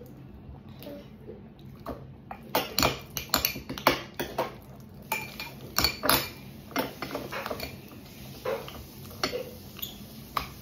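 A utensil scraping and clinking against a bowl in irregular strokes as glue and activator are stirred into slime. The strokes start about two seconds in.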